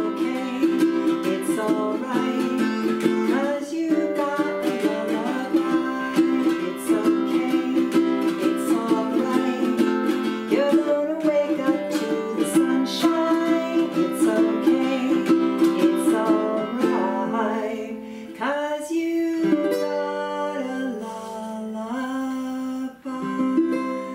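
A woman singing while strumming an acoustic ukulele. The strumming runs in an even rhythm, then gives way to longer held notes and a last strum in the final few seconds as the song winds down.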